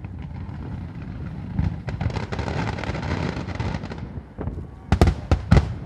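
Aerial fireworks bursting: a rumbling hiss that swells in the middle, then a quick cluster of sharp bangs about five seconds in.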